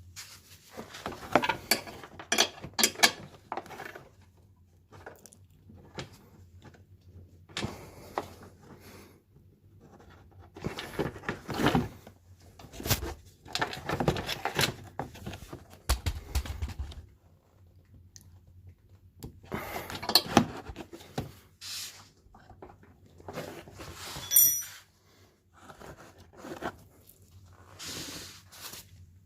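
Intermittent scraping, clicking and clattering of hard objects being handled, in uneven bursts, with a short run of high beeps about 24 seconds in.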